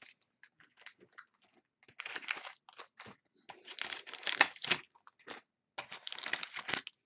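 Foil trading-card packs crinkling and rustling as they are handled and slid out of a card box's fitted tray, in three bursts about two, four and six seconds in, with a few light ticks before them.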